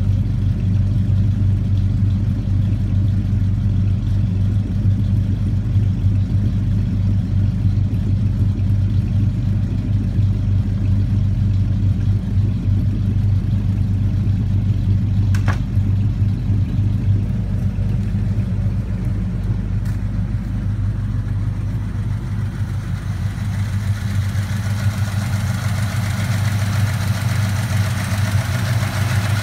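Ford F100 pickup engine idling steadily with a low, even exhaust note. About three-quarters of the way through, the sound turns brighter, with more intake and valvetrain noise as the engine is heard from under the open hood.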